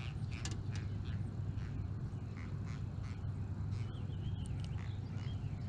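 A small catfish held in the hand giving a string of short, irregular creaky squeaks and clicks, made by grinding its pectoral spines, over a steady low hum.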